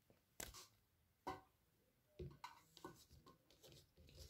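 Near silence with a few faint, short clicks and rustles, the clearest about half a second and just over a second in, as an Apple Watch's perforated sport band is unfastened and the watch is slipped off the wrist.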